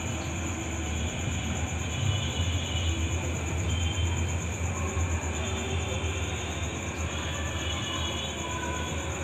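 Steady night-time background noise: a low rumble that grows louder through the middle, over a constant hiss and a steady high, pulsing buzz.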